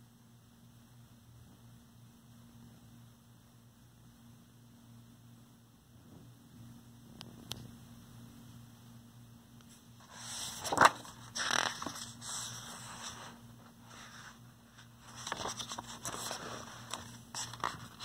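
Picture-book pages being handled and turned: paper rustling with a sharp flap about eleven seconds in, and more rustling near the end. For the first ten seconds only a faint low hum.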